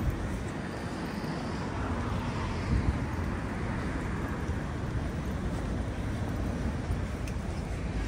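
Steady city traffic noise, with a vehicle passing in the first few seconds, its sound swelling and then falling away.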